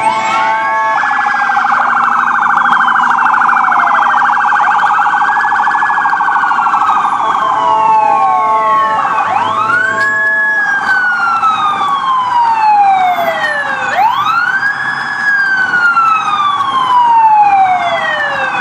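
Several emergency-vehicle sirens on passing fire trucks and ambulances sounding at once. Wailing sweeps rise quickly and fall slowly every few seconds, overlapping one another, over a steady, rapidly pulsing siren tone.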